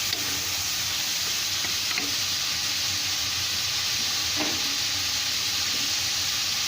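Rohu fish pieces and ground spices sizzling steadily in hot olive oil in a kadai while being stirred, with a few faint clicks of the stirring.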